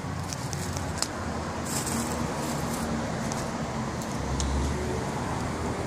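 Steady low rumble of outdoor vehicle or traffic noise, with a few faint light clicks.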